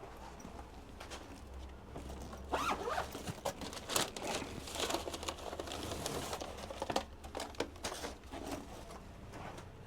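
A zipper being pulled in quick strokes, with crinkling and rustling of packaging, over a low steady hum.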